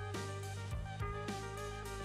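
Background music with a steady drum beat over sustained instrumental tones and bass.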